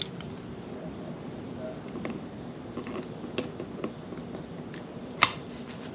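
Locking pliers clamped on a seized front brake caliper piston of a 1976 Yamaha RD400C, being worked to pull it free: scattered metallic clicks and creaks, with one sharp click about five seconds in.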